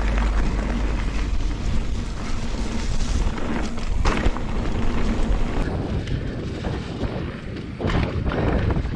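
Wind buffeting an action camera's microphone as a mountain bike rides along a trail: a steady deep rumble, with sharp knocks and rattles from the bike going over rough ground, one about four seconds in and several near the end.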